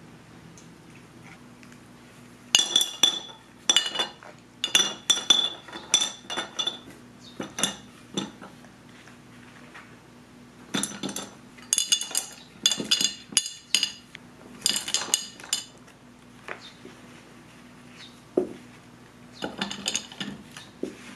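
Green ume plums and lumps of rock sugar dropped by hand into a glass storage jar, layered in turn for plum syrup. They clink and knock against the glass and each other in three runs of quick clinks, each clink ringing briefly in the jar.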